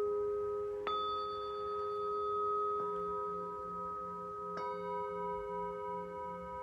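Metal singing bowl ringing with several long overlapping tones. It is struck about a second in and again a little past halfway, with a lighter strike in between, and its tones waver in a slow pulsing beat.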